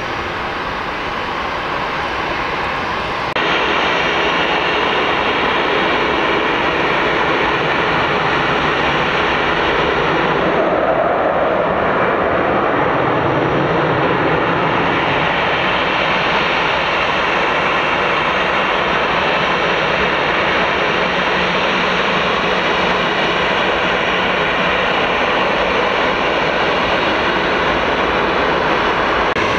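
Steady jet-engine noise from an easyJet Airbus A320's turbofans as the airliner moves slowly along the runway at low power. For the first few seconds a fainter jet noise from an airliner climbing away is heard, then the level steps up suddenly to the nearer, louder engines.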